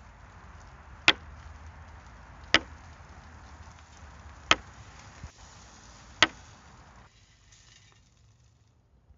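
Four sharp, short knocks, one every one and a half to two seconds, over a faint steady hum that fades out near the end.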